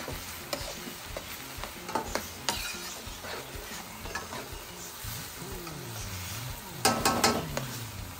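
A metal spoon stirring and knocking in stainless steel cooking pots over a steady sizzle of frying, with a louder burst of clatter against the pots about seven seconds in.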